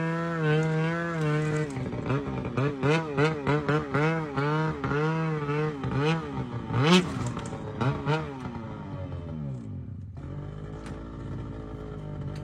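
Snowmobile engine revved in quick throttle blips while the sled climbs its loading ramps onto a truck deck, the pitch rising and falling about twice a second. A sharp knock comes about seven seconds in, then the engine winds down and settles to a steady idle.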